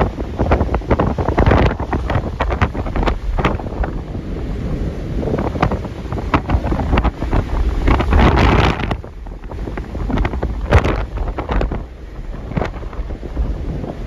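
Storm-force wind buffeting the microphone in irregular heavy gusts, over the rush of breaking waves in a force 9–10 sea. The wind surges about eight seconds in, then eases briefly.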